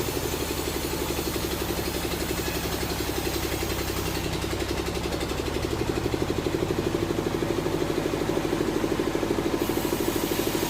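Sawmill machinery running steadily, with a fast, even pulse of about seven beats a second; it grows a little louder about six seconds in.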